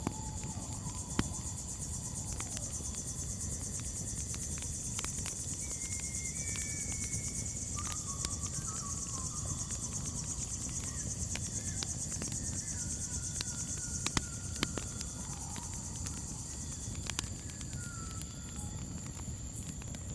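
Crickets chirring in a steady high chorus over the crackle of a campfire: scattered sharp pops and a low rumble. A few faint short whistled calls drift in from about six seconds on.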